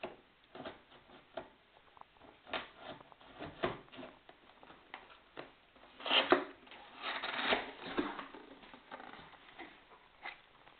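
Cardboard box and packaging being handled as the seal of a new laptop box is opened: irregular rustles, scrapes and small taps, with louder rustling about six seconds in and again from about seven to eight seconds in.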